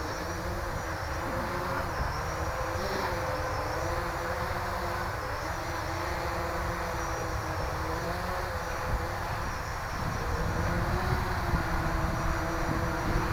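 Armattan CNC 355 quadcopter's brushless motors and propellers buzzing in flight, the pitch wavering up and down as the throttle changes.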